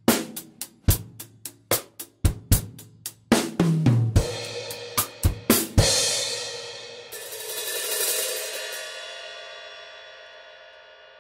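Acoustic drum kit with Meinl cymbals playing the closing bars: a steady beat on hi-hat, snare and bass drum, a tom fill falling in pitch about four seconds in, then a final cymbal crash near six seconds. The crash rings on, swells once more about two seconds later, and slowly fades out.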